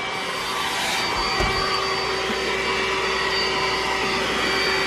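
iRobot Roomba s9+ robot vacuum running on max power, a steady motor hum with a thin whine.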